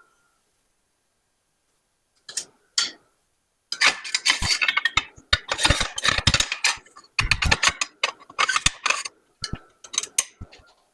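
Metal parts being handled: a busy run of clinking, clanking knocks and rattles, some ringing briefly, starting about two seconds in.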